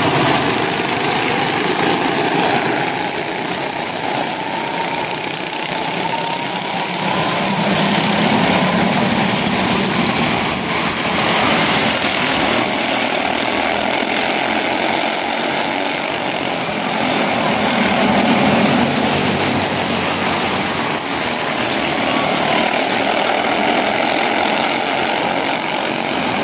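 A pack of quarter midget race cars circling a small oval, their small single-cylinder engines buzzing together in a steady drone, with the pitch rising and falling as cars pass.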